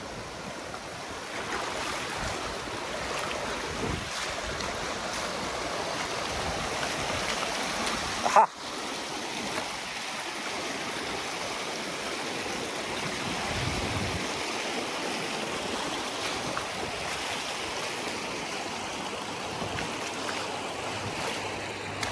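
Shallow river rushing over rock ledges and small rapids close at hand, a steady wash of water. A single brief sharp thump stands out about eight seconds in.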